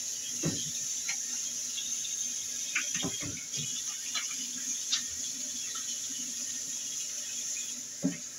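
Kitchen tap running into the sink while hands are washed under it, a steady rush of water with a few soft knocks.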